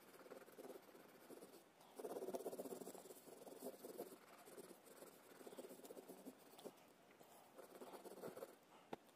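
Faint scratching of a coloured pencil on paper, rapid back-and-forth shading strokes filling in an area, loudest about two to three seconds in, with a small click near the end.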